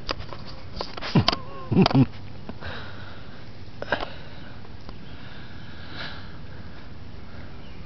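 Whippet puppy sniffing right at the microphone: a few loud snuffs in the first two seconds, then a single sharp click about four seconds in.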